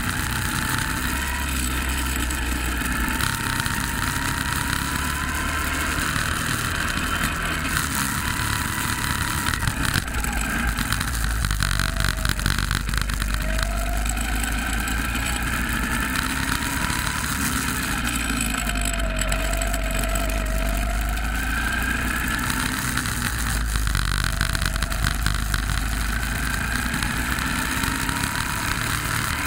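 Go-kart engine running hard, its pitch rising and falling again and again as the kart speeds up along the straights and slows into the corners.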